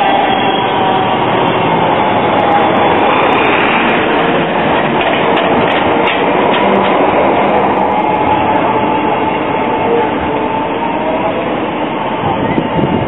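Low-floor trams passing close by on street track: steady running noise of steel wheels on the rails, with a faint high whine running through it.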